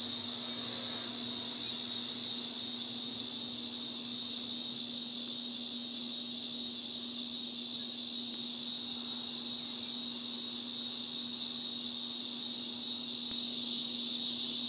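Steady high-pitched chorus of insects, likely crickets, trilling with a faint even pulse, over a steady low hum.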